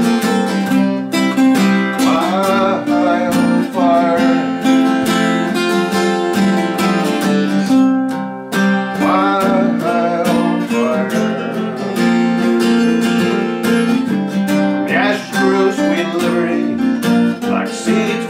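Acoustic guitar strumming chords, with a picked melody line moving over them, in an instrumental break of a live acoustic folk song.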